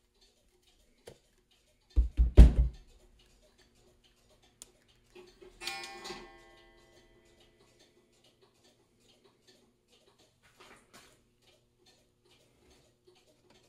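Heavy metal camera housing pipe and its lens end cap being handled on a workbench: a quick run of heavy thumps about two seconds in, then a metallic clank whose ring dies away over about a second, and a few faint clicks near the end.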